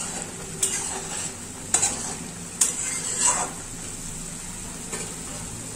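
Nikuti sweets boiling in sticky sugar syrup in a metal kadai: a steady bubbling hiss, with a steel spatula scraping and knocking against the pan several times, mostly in the first three and a half seconds.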